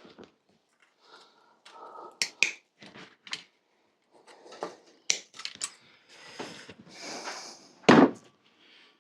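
Cable cutters snipping and handling, a run of sharp clicks and snaps, as the rusty gear and brake cables are cut off a bicycle. There is some scraping, and a louder knock near the end.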